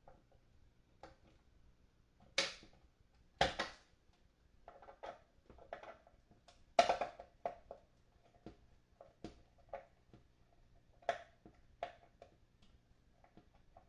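Irregular clicks and knocks of a hand tool on small metal nuts while tightening them during reassembly of a guitar amplifier. Several louder knocks come in the first half, the loudest about seven seconds in.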